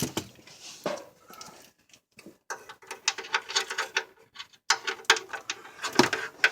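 A run of quick, irregular clicks and knocks of hand tools and an oil drain pan being handled under a car while getting at the oil drain plug.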